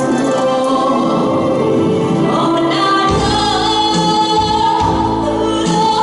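A woman singing a Korean trot song live into a handheld microphone over musical accompaniment, her voice holding long, wavering notes; deep bass joins about three seconds in.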